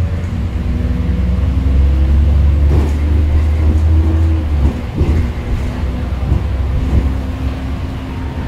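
Bus engine and drivetrain heard from inside the cabin, a deep steady drone that eases off a little past halfway, with a few knocks and rattles from the body.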